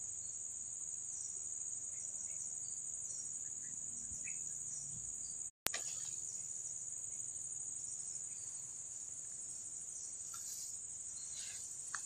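Steady high-pitched chorus of insects such as crickets, continuous except for a moment about halfway through where all sound cuts out.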